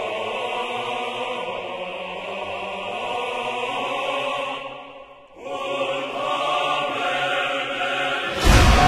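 Background music of choral chanting in long held chords, fading out briefly about five seconds in and coming back. Near the end a loud new section with heavy bass cuts in.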